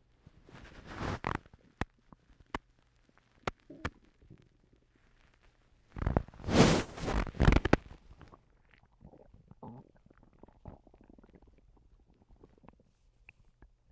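A person's stomach gurgling and rumbling. A short gurgle comes about a second in, followed by a few sharp pops. A louder, longer gurgle follows about six seconds in, then fainter gurgles.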